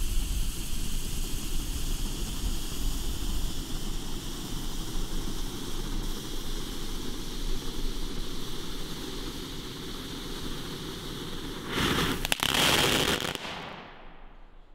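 Funke Geysir Kaliber C fountain firework spraying sparks with a steady hiss. About twelve seconds in it ends in a louder, rushing burst with a few sharp pops, then dies away.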